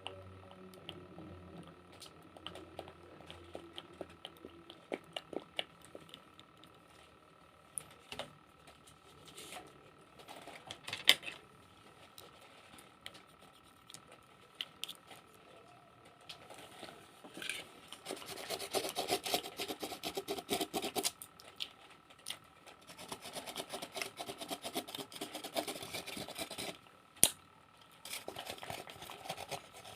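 Close-up scratching and rubbing with scattered light taps and clicks. Two stretches of dense, fast scratching come a little past the middle and again shortly after, and two sharp clicks stand out, one about a third of the way in and one near the end.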